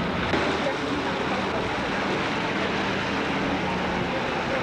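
Steady rushing wind noise on the camcorder microphone during a snow storm, with faint distant voices under it.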